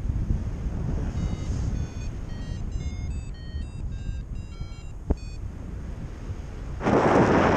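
Wind rushing over the microphone during a paraglider flight. About a second in, a run of short electronic beeps at changing pitches sounds for about four seconds, with a single click just after. Near the end a much louder rush of wind comes in.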